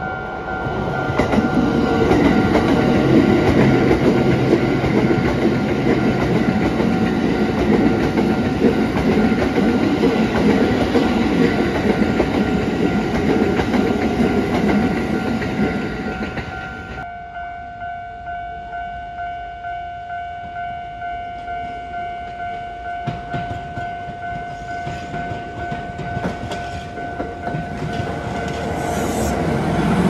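A Kintetsu 5200 series electric train runs over a level crossing, a loud rumble with rail clatter, while the crossing's electronic warning bell rings. About 17 seconds in, the train noise drops away and the bell's repeating ding, about two a second, is left. Near the end the sound of another approaching train builds.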